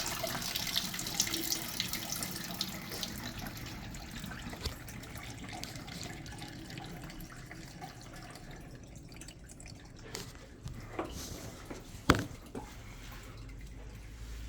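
Water running and splashing, slowly dying away, with a single sharp knock about twelve seconds in.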